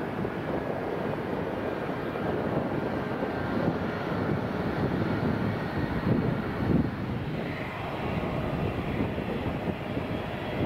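Jet airliner engines on a landing approach: a steady rushing noise that holds at much the same loudness throughout.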